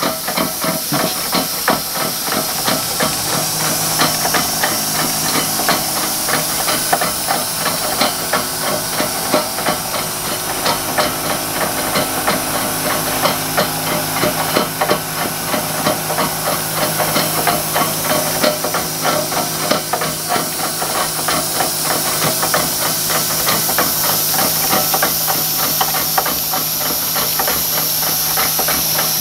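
A 20 hp Stanley twin-cylinder double-acting steam engine, 4x5 bore and stroke, runs on the bench while it turns a 1936 Ford rear axle that has been modified with a spur gear. It is driven through a hose rather than from a boiler. Its exhaust makes a fast, steady run of hissing puffs with knocking from the moving parts, which starts abruptly and gets a little louder in the later part.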